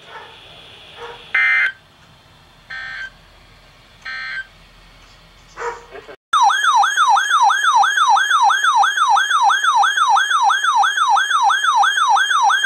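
Four short bursts of EAS digital data tones in the first six seconds. Then, about six seconds in, a weather radio's electronic siren alarm starts: a loud, fast yelping wail sweeping up and down about three times a second.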